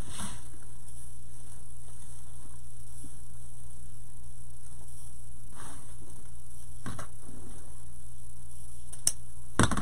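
Steady electrical hum under soft rustles of ribbon being handled on a bow maker, then two sharp snips near the end as scissors cut the ribbon, the second the louder.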